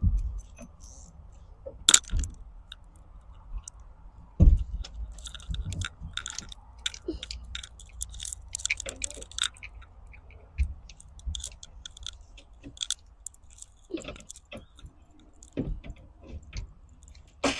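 Flathead screwdriver loosening hose clamps: irregular light clicks and scrapes of the blade and the turning clamp screws. There are two louder knocks, about two and four and a half seconds in.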